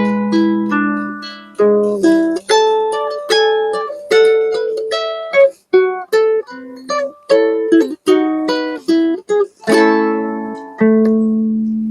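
Acoustic plucked-string instrument playing an instrumental passage: a picked melody of single ringing notes that die away, with a fuller chord about ten seconds in.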